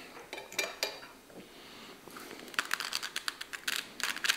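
Cutlery clicking and tapping against a plate as more food is taken up. A few scattered clicks, then a quick run of light clicks in the last second and a half.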